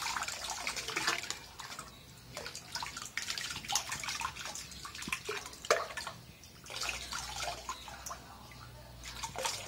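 Water splashing and trickling into a plastic basin of water from a plastic dipper, in irregular drips and small splashes, as the pump's hose end is held underwater while the pump is primed.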